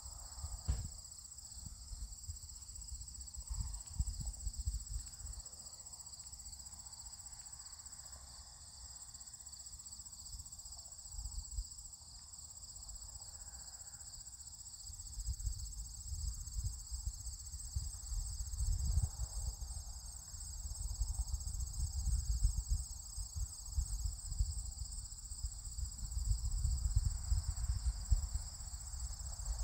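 Steady high-pitched chirring of insects in the grass. From about halfway through, uneven low rumbling, like wind buffeting the microphone, is added.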